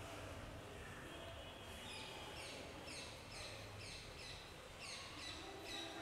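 A bird calling in a rapid series of short, high, falling chirps, about three a second, starting about two seconds in, over faint low background noise.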